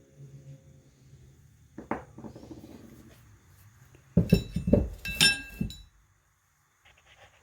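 Steel tools and rifle parts being handled on a workbench: a knock about two seconds in, then a burst of clanks and clinks with a short metallic ring, about four to six seconds in.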